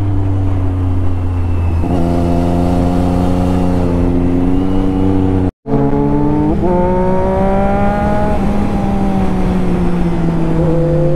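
Sport-motorcycle engines running and revving on the move, pitch sliding up and down and changing as the throttle and gears change, with no speech over them. The sound cuts out completely for a moment a little past halfway.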